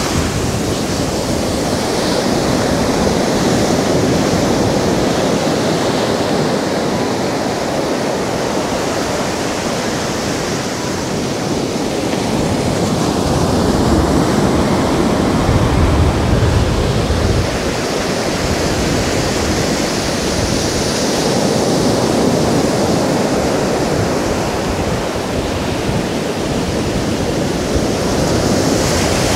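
Sea surf: waves breaking offshore and foam washing up over a sandy beach, a continuous rush that swells louder and eases off.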